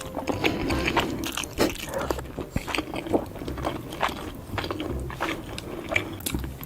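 A person eating noodles close to the microphone: a continuous run of wet chewing and biting sounds with many short, sharp clicks.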